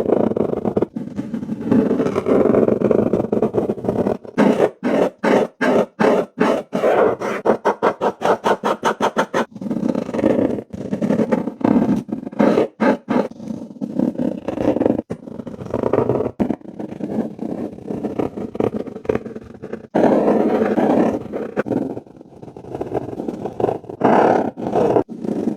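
Acrylic marker tip scraping across paper in close-miked colouring strokes, with a quick run of short back-and-forth strokes from about four to nine seconds in.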